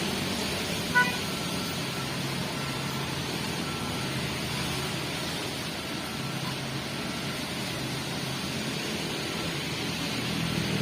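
Diesel machinery running steadily: a dump truck and an excavator at work. A short, loud horn-like toot comes about a second in, and faint intermittent beeping follows for a few seconds.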